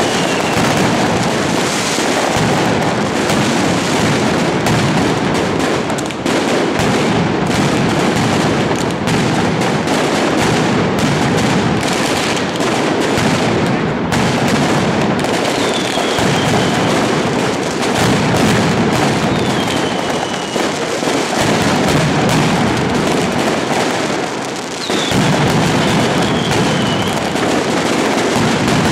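A mascletà: strings of ground firecrackers (masclets and tracas) going off in a dense, continuous rattle of bangs that barely lets up. Occasional short falling whistles sound above the bangs.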